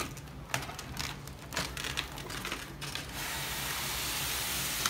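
Cardboard box and polystyrene foam packaging being handled: a few light taps and knocks, then, about three seconds in, a steady scraping hiss as the foam block slides out of its cardboard box.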